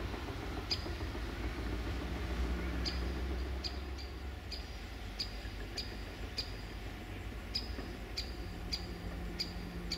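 A bird calling over and over with short, sharp, high chirps, about one or two a second, over a low steady rumble.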